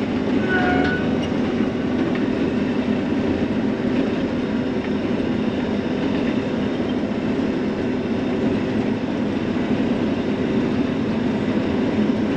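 John Deere self-propelled swather running steadily as it cuts a field of sunflowers, the engine and cutting header making a constant mechanical drone.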